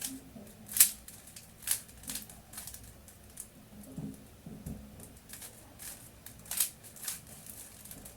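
Rubik's Cube being twisted by hand: the plastic layers make irregular sharp clicks, about one or two a second.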